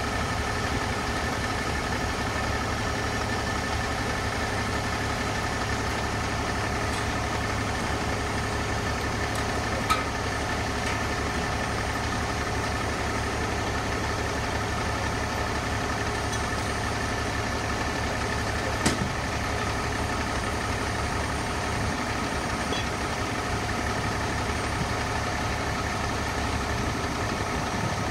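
Fire truck's diesel engine idling steadily, a continuous low throb with a steady whine above it. Two brief knocks about ten and nineteen seconds in.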